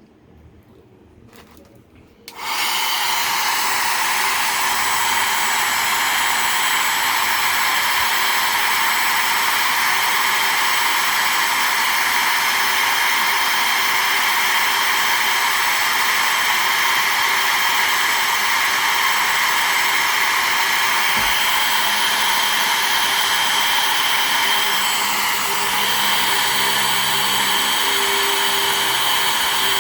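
Hand-held blow dryer switched on about two seconds in and running steadily, an even rush of air with a faint steady whine in it.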